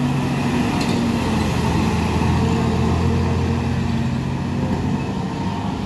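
Ladju intercity bus's diesel engine running as the bus drives slowly past and turns away, a steady engine drone that is loudest in the middle and eases near the end.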